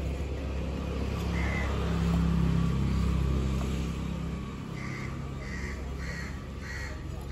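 A crow cawing: one call early on, then a run of about five caws at even spacing in the second half. Under it, a low engine rumble that swells and fades in the first half, like a passing vehicle.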